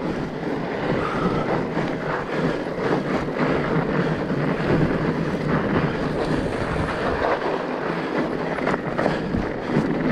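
Fat bike being ridden over a rough trail: steady rolling noise of the wide tyres with continual small rattles and knocks from the bike.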